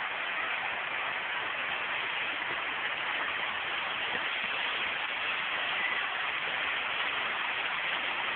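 Water of a tiered stone fountain cascade pouring over its ledges: a steady rushing hiss.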